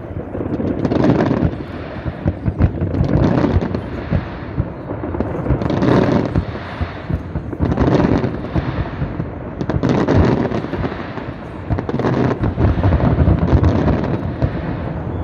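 Aerial fireworks display: dense volleys of sharp bangs and crackles, swelling again every couple of seconds.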